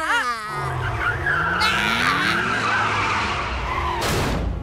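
Cartoon race car sound effects: an engine revving with a steadily rising pitch and tyres screeching, then a sudden whoosh about four seconds in as the car speeds past.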